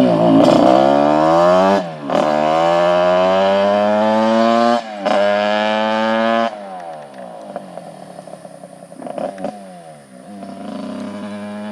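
Tuned 100 cc Simson two-stroke moped engine under hard acceleration, its pitch climbing, dropping back at gear changes about two and five seconds in, and climbing again. About six and a half seconds in the throttle closes and the engine falls to a lower, uneven note, then runs at a steady lower pitch near the end.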